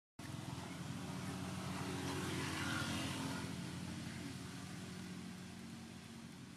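Low engine hum of a passing vehicle, growing louder over the first few seconds and then slowly fading.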